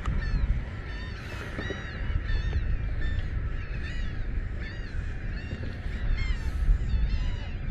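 Birds calling over and over in quick short squawks, several voices overlapping, with a low rumble of wind on the microphone underneath.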